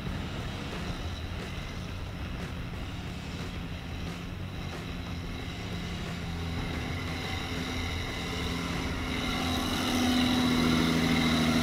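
John Deere 4455 tractor's six-cylinder diesel engine running steadily under load as it drives through deep mud, growing louder as the tractor comes close near the end.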